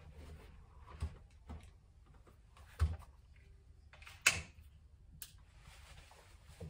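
Handling noises of a PCP air rifle being lifted and readied on a shooting bench: a few scattered knocks and clicks, the loudest a dull thump about three seconds in and a sharp click just over a second later.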